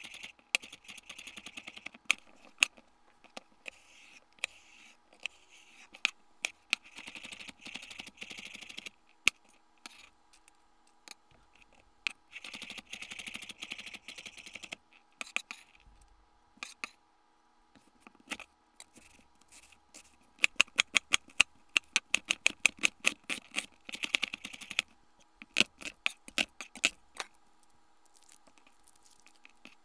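Chef's knife dicing carrot and then celery on a bamboo cutting board: sharp knocks of the blade on the wood, with fast runs of chopping and stretches of the blade scraping across the board. It falls quieter near the end.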